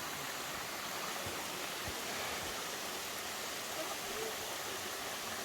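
Steady rushing hiss of the Risco waterfall pouring into a lake, with faint distant voices underneath.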